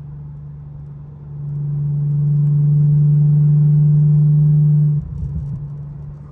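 Steady low drone inside the cabin of a Mercedes E320 with a V6, cruising at highway speed: one held hum with overtones. It swells louder after about a second and drops back near the end, where a brief rumble comes through.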